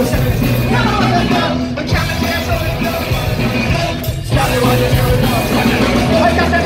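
Live ska-punk rock band playing loud: electric bass, guitars and drums, with a singer on vocals.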